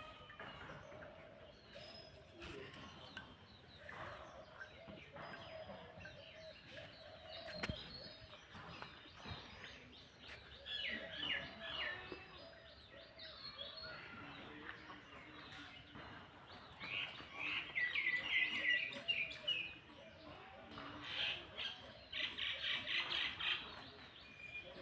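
Birds chirping in quick, high-pitched runs that come in bursts about a third of the way in, around two-thirds through and near the end.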